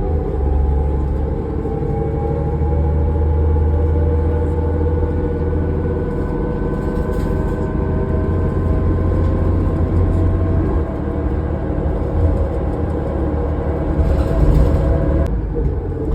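2005 New Flyer D40LF diesel transit bus under way, heard from inside: a low driveline rumble under a howling whine that rises slowly in pitch, with the higher part of the whine cutting off suddenly near the end.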